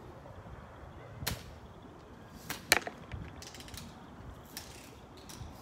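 Sharp snaps of BB guns being fired, three of them in the first three seconds, the loudest about three seconds in, followed by a few fainter clicks.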